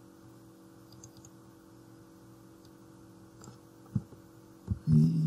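A few faint computer mouse clicks and key presses while text is selected and edited, with one firmer click about four seconds in. Near the end comes a brief, louder low sound with a steady pitch, lasting about half a second.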